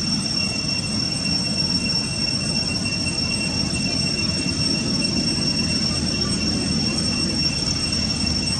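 Steady, unbroken high-pitched drone of cicadas in the forest canopy, over a low, even background rumble.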